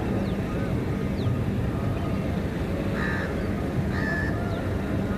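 Crows cawing, two short caws about three and four seconds in, over a steady low outdoor rumble, with a few faint high chirps.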